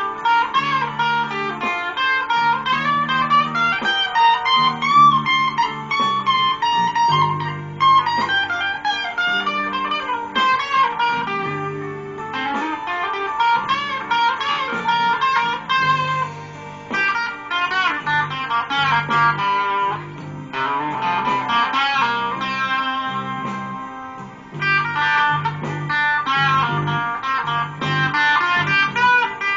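Electric guitar playing improvised blues lead lines with bent notes over a walking electric bass line, a blues jam in G.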